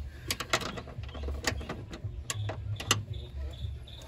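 A hand wrench turning a nut on the rear strut's top mount, giving a string of sharp, irregularly spaced metal clicks over a low rumble.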